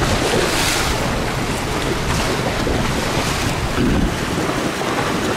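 Wind buffeting the microphone over choppy water washing against a harbour seawall, with a hissy gust about half a second in.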